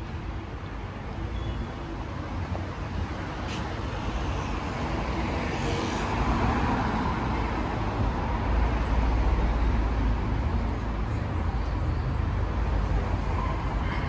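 City street traffic: the engine and tyre noise of a passing car swells to a low rumble past the middle, then eases, over the steady noise of the traffic.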